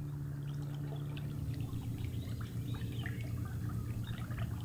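Water trickling and lapping in small splashes over a steady low hum.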